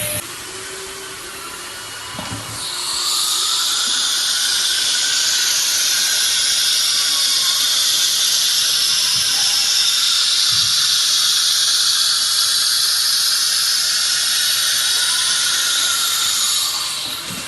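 ATC CNC router at work: a steady, loud high hiss with a faint wavering whine starts about two and a half seconds in and stops shortly before the end.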